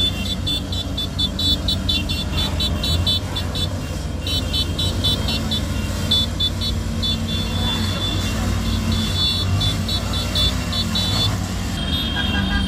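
A convoy of motorcycles running at road speed, a steady low engine rumble, under a rapid train of short high-pitched beeps, several a second, with brief pauses.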